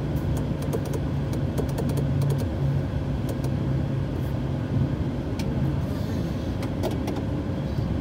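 Cockpit noise of an Embraer business jet taxiing: a steady low hum and rumble from the idling engines and rolling wheels, with frequent small clicks and rattles.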